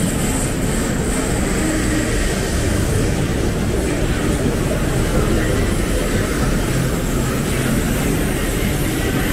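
Steady city street noise, mostly a low rumble of traffic.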